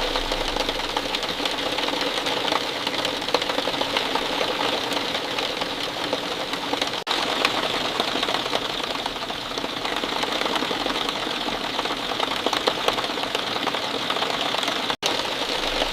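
Rain falling steadily, a dense patter of countless drops. The sound cuts out for an instant about seven seconds in and again near the end.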